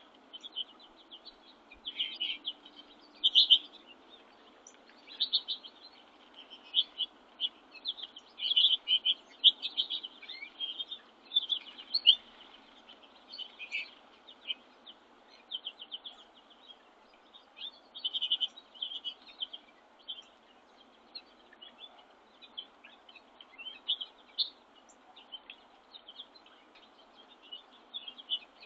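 Small backyard songbirds chirping and twittering almost without pause, a quick jumble of short high notes from several birds, over a faint steady background hiss.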